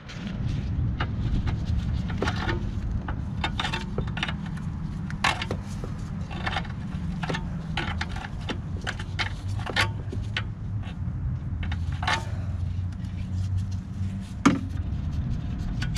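Hand tool clicking and knocking on metal parts as an old rubber-bushed air cleaner mount bolt is worked loose, with irregular sharp clicks and one louder knock near the end. A steady low hum runs underneath.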